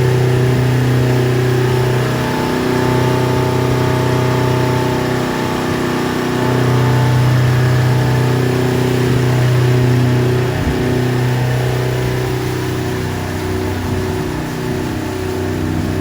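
Speedboat engine running steadily at cruising speed, its pitch wavering slightly, over a rush of water and wind noise.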